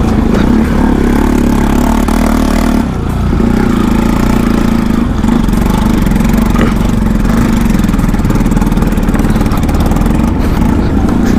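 Motorcycle engine running steadily on a rough dirt track, its note dipping briefly about three seconds in before picking up again.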